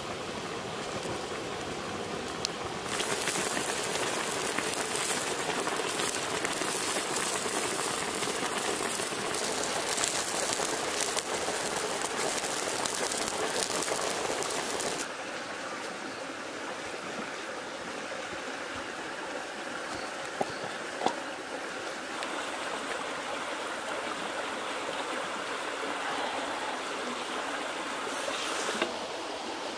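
Spicy broth boiling in a wok over a wood fire: a steady bubbling hiss that grows louder about three seconds in and drops back about halfway through, with a few sharp crackles from the burning wood later on.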